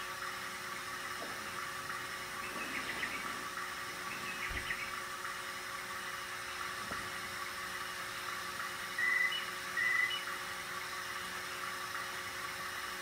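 RCA 3700F cassette deck's tape transport running: a steady whir from the capstan motor and belt-driven flywheel, with faint crackles. Two short high chirps stand out about nine and ten seconds in.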